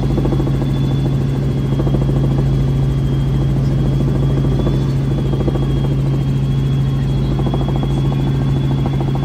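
Helicopter running steadily in flight: a constant low rotor and engine drone with a thin, steady high whine above it.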